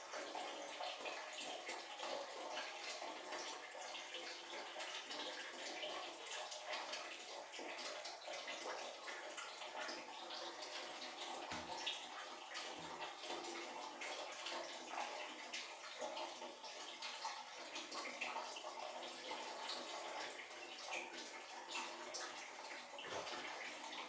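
Water running steadily, a continuous splashing hiss echoing in a small tiled bathroom.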